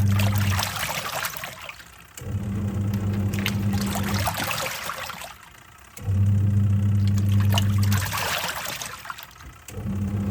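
Twin-tub washing machine's wash tub in action: the pulsator motor hums for about two seconds, stops, then starts again, about four times. Water sloshes and swirls in the tub throughout, surging as each run stops, the pattern of a pulsator turning one way, pausing, then reversing.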